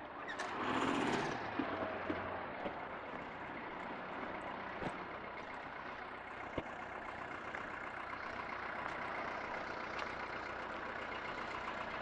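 Empty car-transport freight wagons rolling slowly past, with a few sharp clicks from the wheels and a louder swell of rolling noise about a second in. After the last wagon passes, about halfway in, a steady low rumble of waiting traffic remains.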